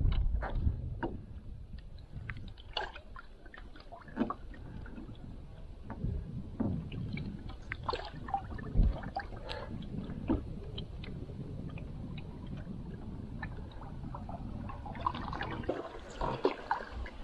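Water sounds from canoe paddling: the paddle dipping and pulling through the water, with water dripping and trickling off the blade and gurgling along the hull in small scattered splashes.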